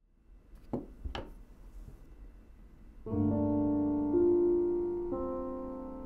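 Background music: a piano enters about three seconds in with sustained chords, changing chord twice and slowly fading. It is preceded by two brief knocks about a second in.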